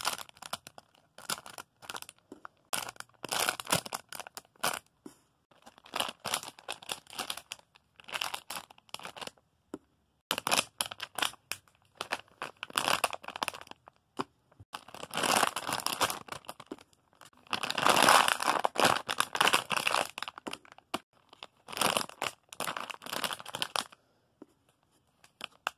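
Plastic squishy-toy packaging crinkling and rustling as it is handled, in irregular bursts with short pauses between.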